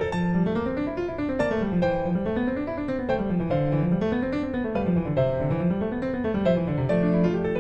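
Background piano music, with runs of notes rippling up and down over a steady accompaniment.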